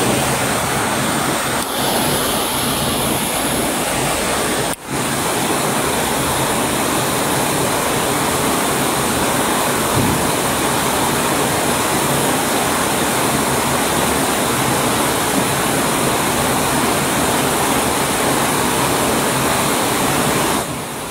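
Shallow river water rushing over a concrete spillway: a loud, steady rush of water that cuts out for an instant about five seconds in and drops in level near the end.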